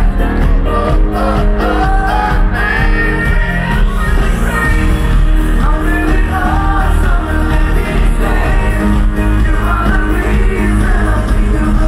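A live pop band with a male lead singer, heard through a big outdoor PA and recorded loud on a phone from the crowd. Sung melody over heavy bass.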